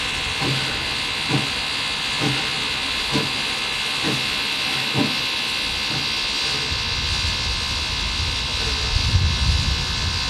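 Steam train under way: a steady hiss of steam with a regular knock about once a second. A heavier low rumble with thumps builds over the last few seconds.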